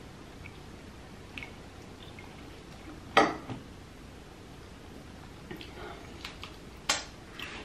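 Cooked king crab leg being picked apart by hand close to the microphone: a sharp crack of shell about three seconds in, then light wet clicks and a second sharp snap near seven seconds as the meat comes free.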